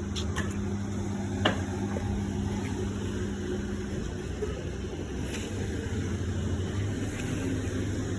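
A machine's steady motor hum, with a sharp click about a second and a half in; a higher part of the hum drops out about halfway through.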